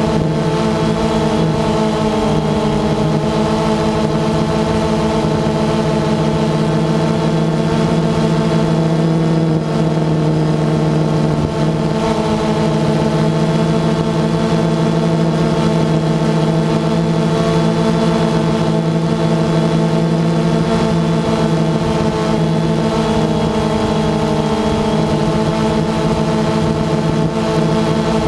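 DJI Phantom 2 quadcopter's electric motors and propellers in flight, a steady multi-pitched buzzing hum that shifts slightly in pitch now and then, heard from the camera mounted on the drone itself.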